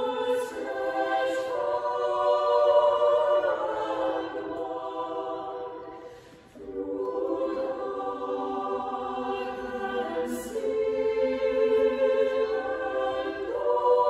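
Choir of high voices singing unaccompanied in held chords. A phrase ends with a short breath gap about six and a half seconds in, then the singing resumes.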